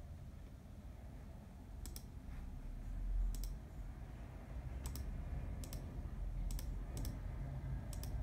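Computer mouse clicking about seven times, some in quick pairs, as items are picked from dropdown menus, over a low background rumble.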